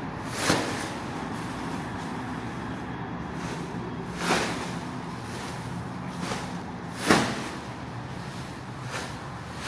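Fabric of a MuffySack inflatable air couch swooshing as it is swung open through the air to scoop air in: three quick whooshes, about half a second, four seconds and seven seconds in, the last the loudest, over a steady low background hum.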